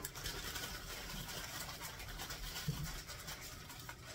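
Frozen chopped onion being shaken out of a plastic zip-top bag into a hot skillet of cooked ground beef: the bag rustles and the onion pieces patter into the pan over a faint, steady sizzle.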